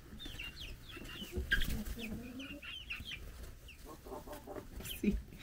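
Young chickens peeping: a steady scatter of short, high, falling chirps, with a few lower calls mixed in. A couple of brief knocks, about a second and a half in and again near the end.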